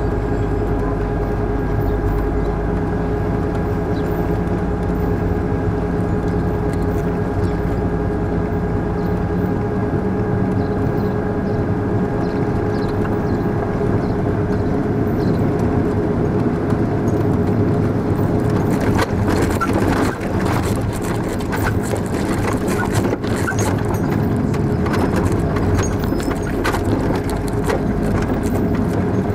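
Military patrol vehicle's engine running steadily as it drives, heard from the open gun turret, with a steady whine over a low hum. From a little past halfway, scattered knocks and rattles join in.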